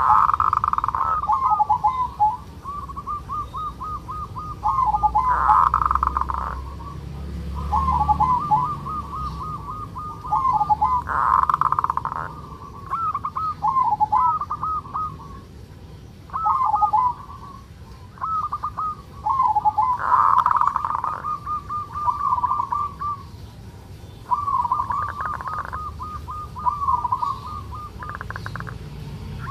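Male zebra dove (local perkutut) giving its rolling 'ngerot' (kerot) call, the call of a bird in breeding condition: fast runs of short curling coos, with a louder, rougher burst every several seconds.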